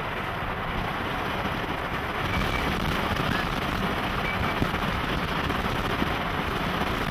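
Steady road and wind noise inside a moving vehicle, an even rush with no distinct events.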